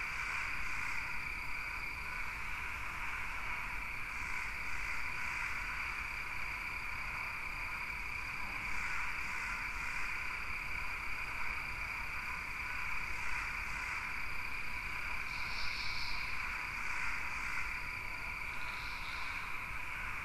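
Steady background ambience of a high, constant chirring chorus with a thin steady whistle-like tone, and faint short chirps coming in small groups every few seconds.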